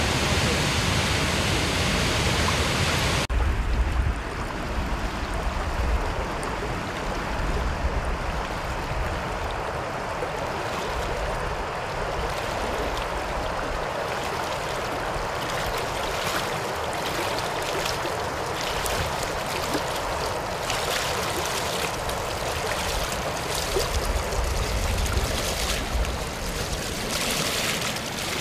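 Roar of a waterfall and white-water rapids that cuts off abruptly about three seconds in to a softer, steady river flow. Later, short splashes come from wading through knee-deep water.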